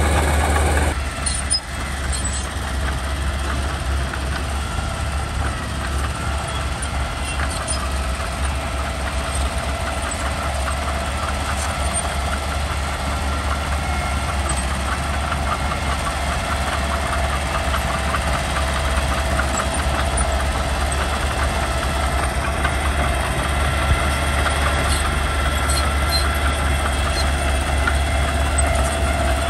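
Mitsubishi BD2G crawler bulldozer's diesel engine running steadily, with a continuous rapid clatter from its steel tracks.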